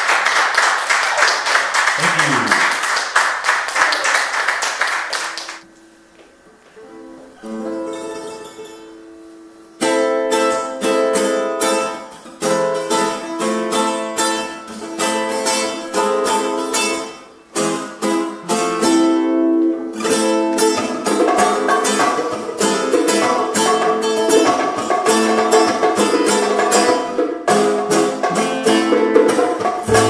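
Audience applause for about five seconds, then a short quiet stretch with a few soft plucked notes on a nylon-string acoustic guitar. From about ten seconds in, a Latin acoustic group plays a quick rhythmic piece on nylon-string guitars with bass and percussion, growing fuller from about twenty seconds in.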